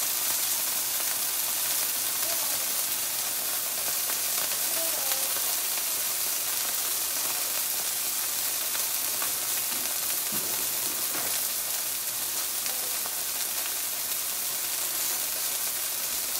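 Bite-sized chicken pieces sizzling steadily in a nonstick skillet on a burner turned down to low.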